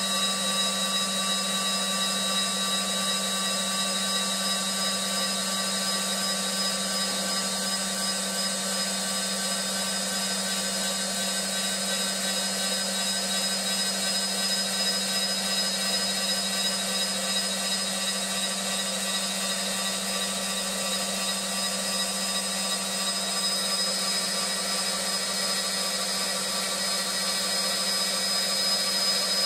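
CNC wood lathe running steadily while turning a wooden pool cue: a constant motor whine with several fixed tones over an even hiss, with no change in pace.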